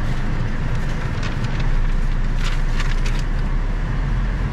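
Honda car's engine running, heard from inside the cabin, with a steady low rumble that grows stronger about a second and a half in as it takes on load. A few brief hissy rustles sound over it.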